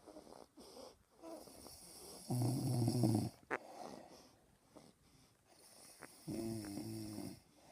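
A sleeping person snoring: two loud, drawn-out snores about four seconds apart, with quieter breathing between them.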